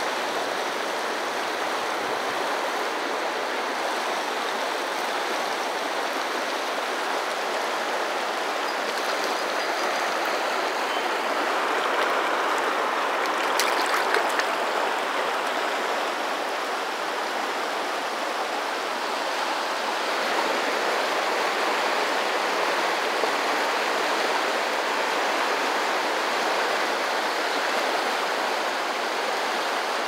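Fast, broken river water rushing steadily over rocky riffles close by, with a brief click near the middle.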